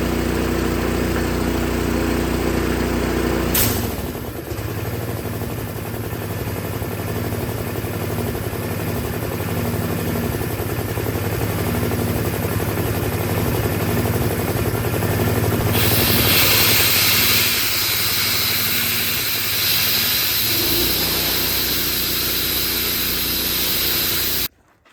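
Makita gas-engine air compressor running and building pressure. A few seconds in there is a sharp click and the engine note drops, and later a steady hiss of air joins in. This is the compressor reaching its cut-off pressure of about 130 PSI, with the pump unloading and the engine throttling down, which is how it is supposed to work.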